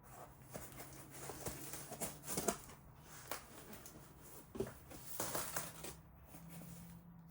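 Packing material, bubble wrap and foam sheets, rustling and crinkling in irregular handling strokes as it is pulled away from a boxed item, with a few sharper crinkles.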